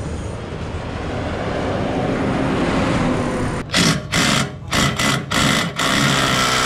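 Cordless impact wrench running in short bursts, about six trigger pulls in three seconds with the last one held longer, tightening a bolt on a car's tow-hitch mount. It starts about three and a half seconds in, after steady background noise.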